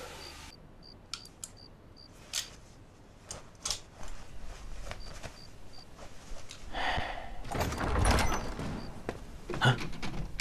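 Scattered light knocks, clicks and bumps of a man rummaging through furniture and bedding while searching a room, with a louder spell of rustling and a low thud about eight seconds in.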